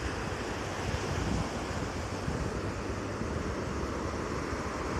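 Sea waves breaking and washing on a beach, with wind buffeting the microphone: a steady rushing noise.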